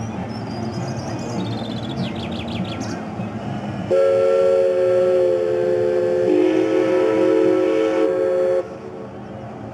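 Paddle steamer's steam whistle sounding one long chord blast of several tones together, lasting about four and a half seconds, with one of the lower notes dropping slightly partway through. Birds chirp in the first few seconds before it.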